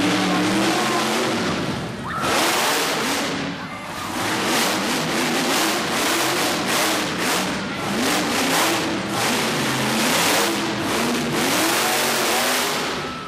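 Monster truck engine revving hard and repeatedly, its pitch climbing and falling with each burst of throttle, in a loud indoor arena.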